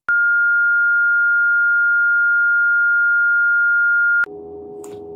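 Colour-bar test-card tone: a single steady pure beep held for about four seconds, which cuts off suddenly and leaves a fainter steady hum.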